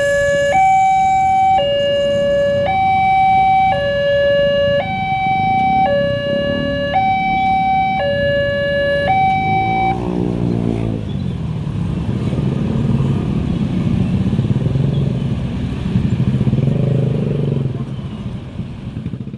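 Railway level-crossing warning siren sounding a two-tone hi-lo, switching pitch about once a second, which stops about halfway through. After it comes the low rumble of passing road vehicles' engines.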